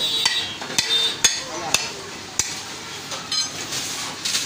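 Sharp knocks, about seven of them at irregular intervals, from butchers' work at a wooden log chopping block on which a beef hind leg is being handled.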